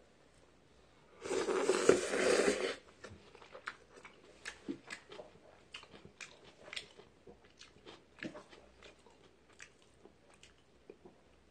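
A person slurping a mouthful of ramen noodles for about a second and a half, then chewing with many small mouth clicks.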